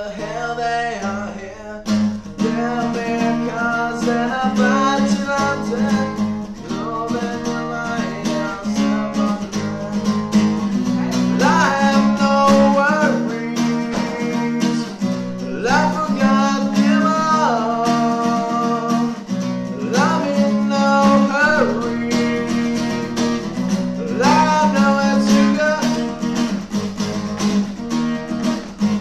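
Background music, an instrumental passage of a song: strummed acoustic guitar with a lead line that slides up in a phrase repeated about every four seconds.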